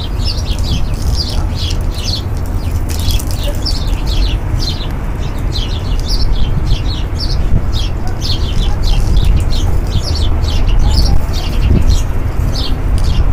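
A flock of small birds chirping, many short high chirps several a second, over a steady low rumble.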